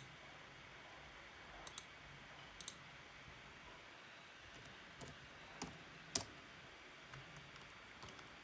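Computer mouse buttons clicking: scattered single clicks and a couple of quick double clicks, over a faint steady hiss.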